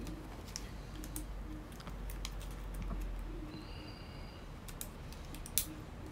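Irregular light clicks and taps of small plastic drone parts being handled and fitted, with one sharper click about five and a half seconds in and a brief faint high tone near the middle.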